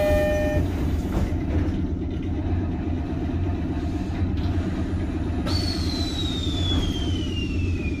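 The last notes of a door chime fitted to a 719 series 5000 subseries EMU, as the sliding doors close over a steady low hum from the stopped train. About five and a half seconds in, a high tone sets in and falls slowly in pitch.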